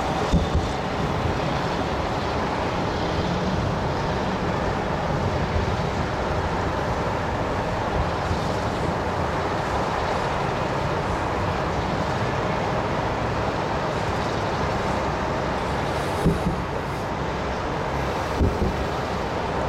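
Distant salute fireworks bursting as a few short thumps, most of them near the end, over a steady noise of wind on the microphone and city traffic.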